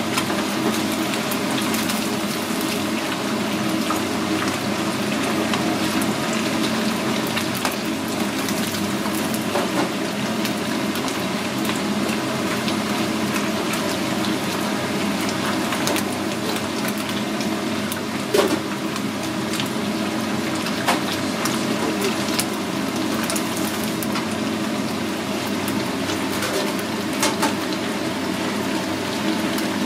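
Hot deep-fryer oil sizzling steadily as small loach fry in it, with a low steady hum underneath. A few sharp clicks come from long wooden cooking chopsticks stirring in the fryer, the loudest about 18 seconds in.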